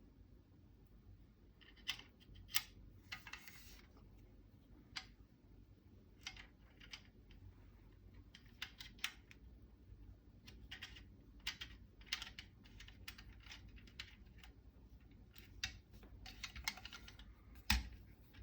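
Small irregular metallic clicks and taps of an Allen wrench and screw being worked into a rifle handguard's receiver extension, with a heavier knock near the end.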